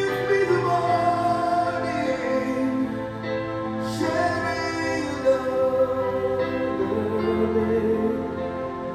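Music playing: a song with a singing voice over long held notes.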